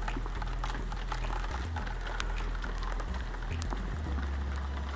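Steady rain falling, an even hiss with scattered sharp drips and ticks, over a low rumble of wind or handling on the microphone.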